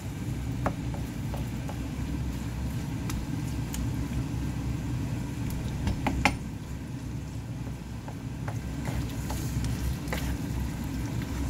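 Wooden spoon stirring and scraping a stir-fry of gopchang and sundae in a nonstick frying pan, with scattered light clicks and a sharper knock about six seconds in. A steady low hum runs underneath.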